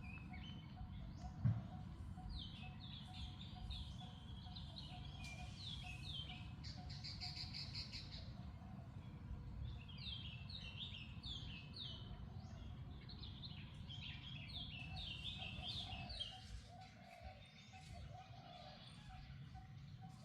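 Birds chirping in repeated runs of short, high, falling notes over steady background noise, with one low thump about a second and a half in.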